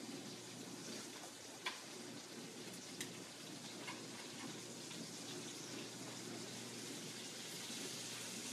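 Turkey burger patties frying in a skillet, a faint steady sizzle, with a few light clicks of metal tongs against the pan as they are turned.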